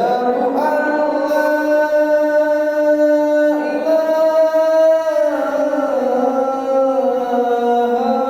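A man's unaccompanied voice chanting the adhan, the Islamic call to prayer, in the Kurdi maqam, dry with no added effects. He holds long notes and glides to a new pitch a few times.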